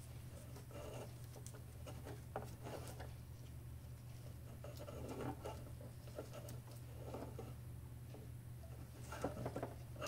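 Gloved hands handling wires and small parts inside a centrifuge's housing: faint rustling, scraping and small clicks in scattered bursts, over a steady low hum.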